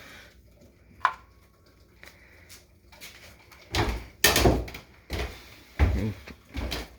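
A sharp click about a second in, then a cluster of heavy thumps and knocks from about four seconds in, with three more single thumps spaced under a second apart near the end.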